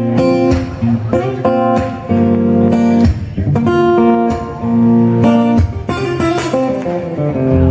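Acoustic guitar strumming a chord pattern with short, sharp percussive strokes between the chords.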